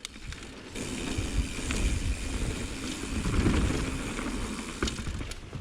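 Bicycle riding along a dirt singletrack trail: steady tyre and rolling noise with rumble and a few light rattles.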